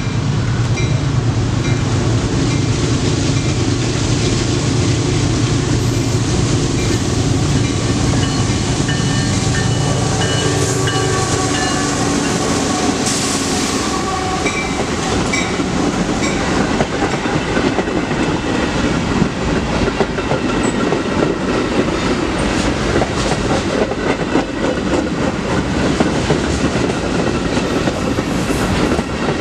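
Canadian Pacific GE AC44CW diesel locomotives passing close with their engines running, a strong steady engine drone for the first several seconds. This gives way to a continuous rumble and clickety-clack of wheels on the rails as the train cars go by.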